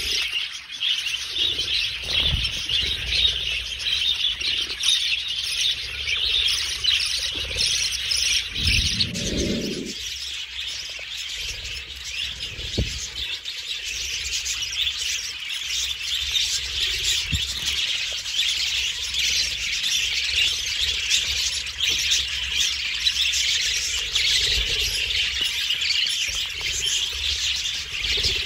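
A flock of budgerigars chattering and chirping continuously, many birds at once.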